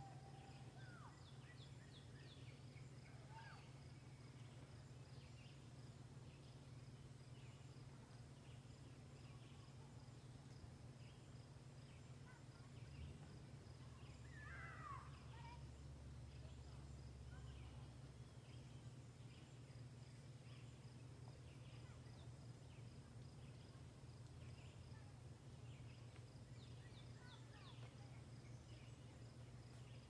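Faint woodland ambience: scattered distant bird chirps, with one longer call about halfway through, over a faint steady insect trill and a steady low hum.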